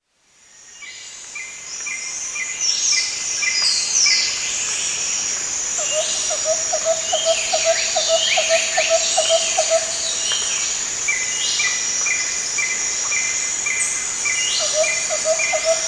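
Jungle ambience fading in over the first couple of seconds: a steady high insect drone under several birds calling with repeated short notes and falling whistles. From about six seconds in a lower rapid trill joins, stops near ten seconds and returns near the end.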